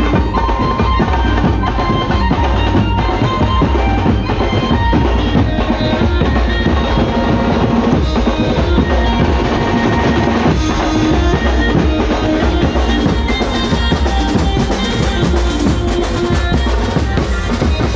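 Banjo-party street band drumming: drums beaten with thin sticks and padded beaters, playing loud and without a break.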